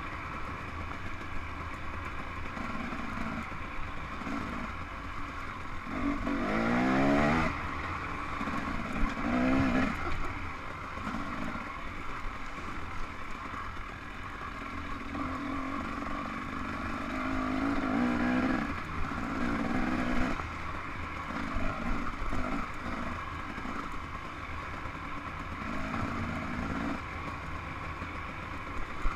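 Dirt bike engine being ridden, the throttle opening and closing so the revs rise and fall repeatedly, with the strongest climbing rev about seven seconds in. Knocks and rattles of the bike running over the rough trail come through now and then.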